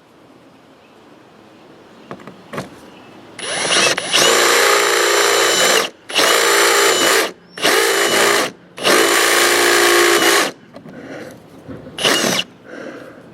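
Power drill turning a step bit, widening pilot holes in the van's sheet-metal roof. It runs in four bursts of one to two seconds, one straight after another, with a steady whine.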